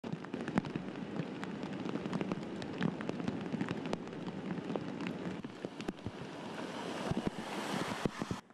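Torrential rain pouring and muddy floodwater rushing, a dense hiss dotted with sharp drop and splash impacts. It turns hissier near the end and cuts off abruptly.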